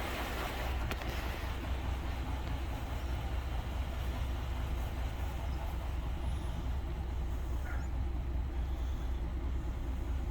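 A running engine or machine with a steady low rumble that doesn't change.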